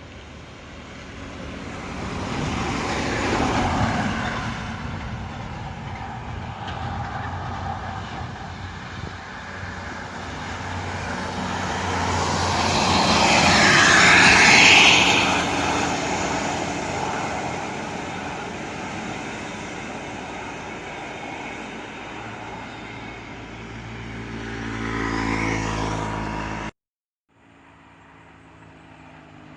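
Heavy intercity buses passing one after another as they climb a hill, each engine swelling and fading, with the loudest pass about halfway through. Near the end the sound cuts off abruptly and a fainter, lower engine sound begins.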